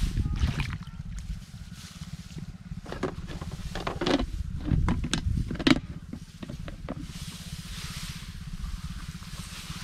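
Rice plants rustling and swishing as a person wades through a rice paddy. A louder cluster of swishes and knocks comes in the middle, over a steady low wind rumble on the microphone.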